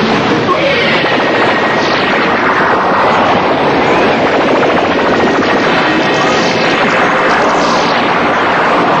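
Film sound effects for clashing magic energy beams: a loud, continuous rushing roar with sweeping whooshes that fall in pitch.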